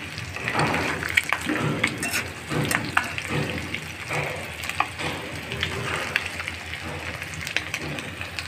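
Hot oil sizzling around potato-filled flour-dough pastries as they deep-fry, a steady crackle with many small pops.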